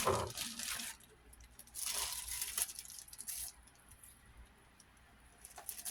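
Rustling and crinkling handling noise in two bursts of about a second each, the second starting about two seconds in, with a few faint ticks after.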